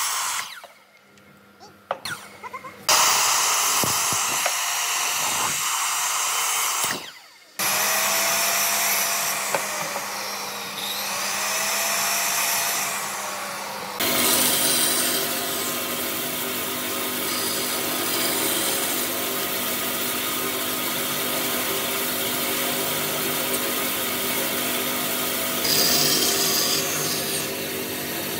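Power saws cutting wood. A circular miter saw blade ends a cut and winds down in the first couple of seconds, further cuts follow, and from about halfway on a thin upright saw blade set in a bench runs steadily, cutting out the waste of a notch in a pine rail.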